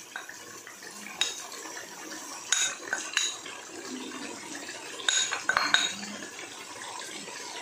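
Spoon clinking and scraping against a ceramic bowl as spice powder is spooned out and sprinkled over a pan of mutton: a few scattered sharp clicks over a faint steady hiss.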